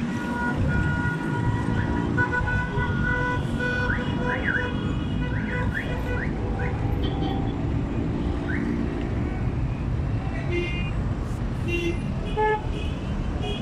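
Street traffic rumbles under a car alarm's high steady tones and short rising and falling sweeps.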